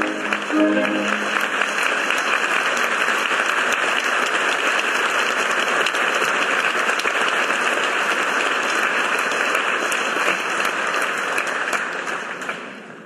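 Orchestra's closing notes in the first second, then a theatre audience applauding steadily; the applause fades out near the end.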